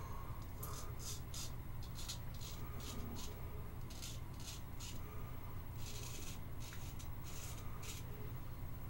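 Straight razor scraping through lathered stubble on the chin and neck: a run of short, irregular scratchy strokes, several a second, with brief pauses between runs, over a steady low hum.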